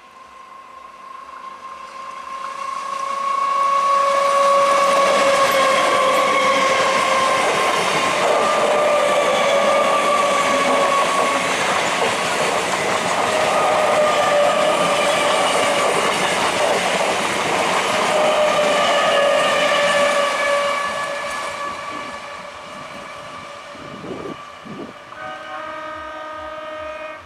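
An EMU electric local train passes close by, sounding a long, steady horn over the rumble and clatter of its wheels on the rails. The sound builds over the first few seconds and fades after about twenty seconds.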